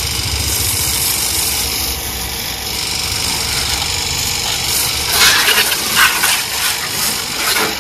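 A motor or engine running steadily with a fast low pulse, joined by bursts of hissing noise about five to seven seconds in.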